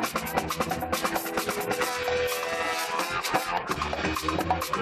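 A live band with a horn section, electric guitars and drums playing instrumental music, with busy, fast percussion. About two seconds in, the percussion thins out and one long note is held for about a second before the rhythm picks up again.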